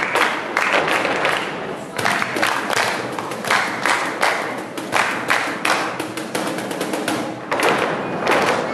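Flamenco dancers' rhythmic hand clapping (palmas) and shoe stamps on a stage floor, a dense run of sharp strikes, several a second.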